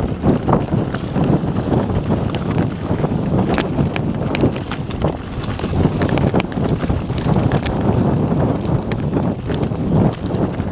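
Wind buffeting the camera microphone during a fast descent on a YT Industries Capra AL Comp mountain bike. Its tyres are rolling over loose stones and the bike is rattling, with many sharp clicks and knocks.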